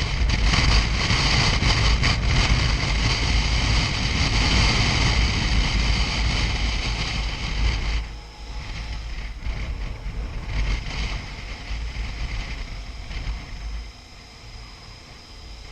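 Wind rushing and buffeting over the microphone on a moving motorcycle in strong wind, with a heavy low rumble. It drops sharply about halfway through and again near the end, as the bike slows.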